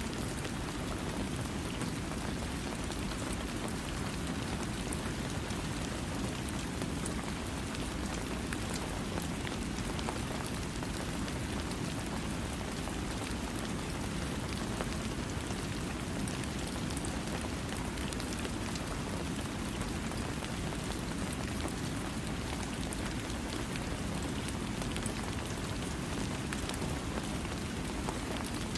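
Steady heavy rainfall, an even hiss with a low rumble and many fine drop ticks, without thunder.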